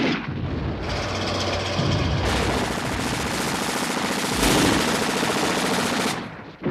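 Rapid automatic gunfire, machine-gun fire going on continuously for about six seconds and stopping shortly before the end.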